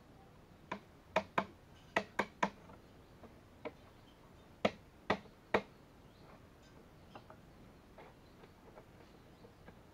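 A hammer tapping a blue PVC elbow fitting down onto a PVC pipe: about ten sharp, hollow knocks in quick clusters of two and three over the first six seconds, then only faint ticks.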